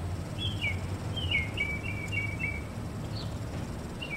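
Small birds chirping, with short high notes and a run of chirps about a second in, over a low steady rumble.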